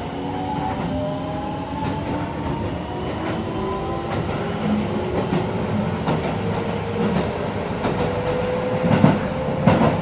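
Keisei 3050-series electric train heard from inside the car: the VVVF inverter whine rises slowly in pitch as the train accelerates, over the rumble of the running gear. Two sharp rail-joint clacks come near the end.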